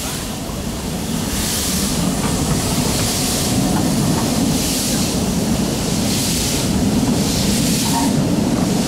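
Beyer Peacock 2-4-0T steam tank locomotive pulling its train away, its exhaust beats coming slowly as hissing puffs about every one and a half seconds, over the low rumble of the coaches rolling past.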